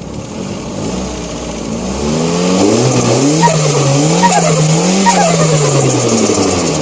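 Turbocharged Ford CHT 1.6 engine revved in three quick blips. Each throttle lift is followed by a short chirping turbo flutter, over a steady high hiss, before the revs fall away.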